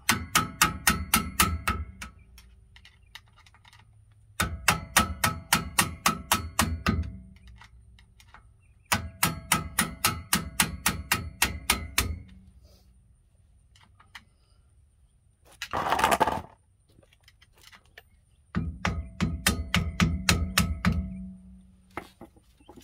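Ratchet wrench clicking in four quick runs of rapid ticks, turning the rear wheel hub nut down snug so the bearing has no play. A short rasping noise comes between the third and fourth runs.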